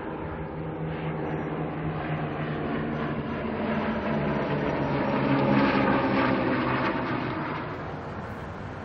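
Engine drone of a formation of four military aircraft flying overhead. It swells to its loudest a little past halfway through, then fades as the formation passes.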